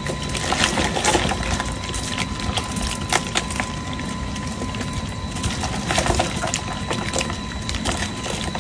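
Irregular light knocks and clatter over a steady low hum, from a catch of live climbing perch being handled.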